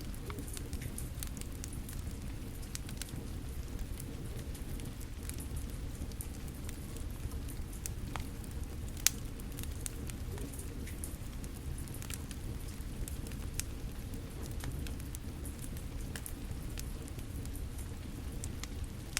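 Steady rain with a fire crackling, scattered small pops throughout and one loud snap about nine seconds in.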